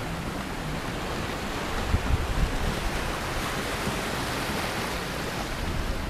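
Small sea waves washing over shoreline rocks, a steady rush of surf, with wind gusting on the microphone in low rumbles, strongest about two seconds in.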